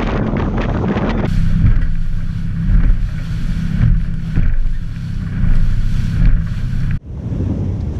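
Boat engine running under way, a loud steady low drone with wind buffeting the microphone. The sound changes abruptly about a second in and drops out for an instant near the end.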